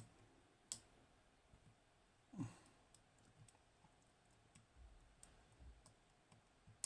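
Faint, sparse metallic clicks of a lock pick tapping the spool pins of a Hori Trident high-pin-count lock, with a sharper click at the very end.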